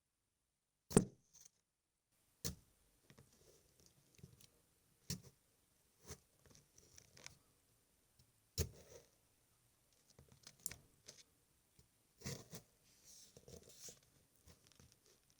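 A kitchen knife stabbed into a raw carrot again and again as a foley stab effect: a sharp crunching stab every few seconds, about six in all, with faint crackles and scrapes from the knife and carrot between them.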